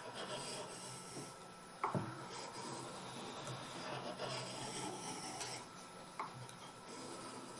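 Steel knife blade being rubbed back and forth across a fine-grit Japanese water stone, a steady wet scraping in repeated strokes, with a light knock about two seconds in and another near six seconds.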